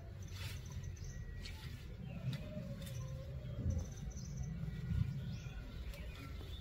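Small birds chirping in short rapid trills, twice, over a steady low rumble.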